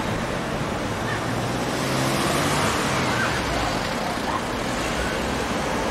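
Steady city street traffic noise: a continuous wash of road vehicles running and passing.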